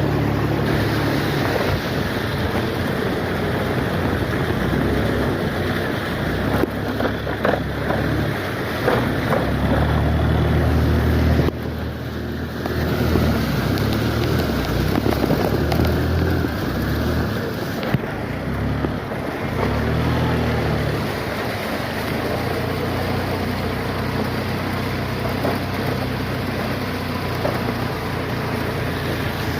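Steady hiss of rain, with gusts of wind buffeting the microphone in uneven low rumbles.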